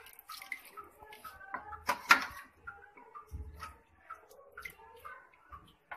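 A metal ladle dipping into a metal pot of paya gravy and pouring it into a ceramic bowl: clinks and knocks of the ladle on the pot and the splash of the poured gravy, with one loud clank about two seconds in.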